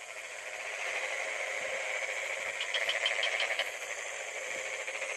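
Night chorus of insects in a rice paddy: a steady shrill buzzing, with a rapid chirping trill for about a second near the middle.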